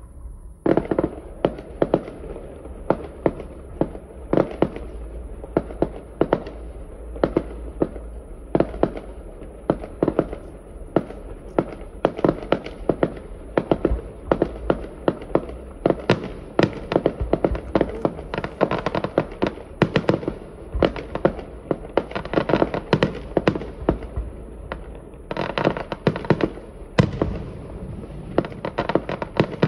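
Fireworks display: a rapid, continuous series of sharp bangs and crackles that starts about a second in, getting denser near the end.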